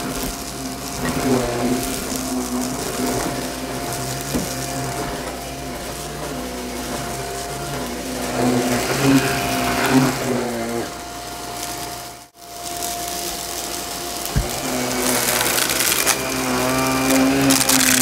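Shark upright vacuum cleaner running over carpet, its motor giving a steady whine and hum with the brushroll turning, the pitch shifting a little as it is pushed. The sound briefly cuts out about twelve seconds in, and there is a single knock a couple of seconds later.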